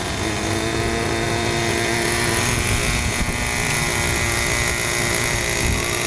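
Small engine of an RC model helicopter running steadily on the ground, a constant buzzing tone, with wind rumbling on the microphone.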